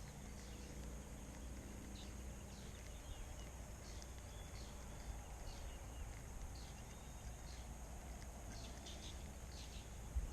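Faint outdoor ambience with a low steady background and scattered short, high bird chirps repeating through it.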